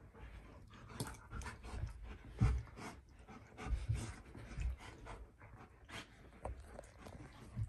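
A golden retriever puppy and an Alaskan malamute play-fighting: panting and scuffling, with irregular low thumps as they wrestle on the rug.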